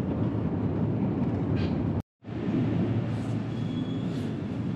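Steady low rumble of a long metro escalator's machinery during the ride up. A short gap of silence about two seconds in, after which a similar rumble continues.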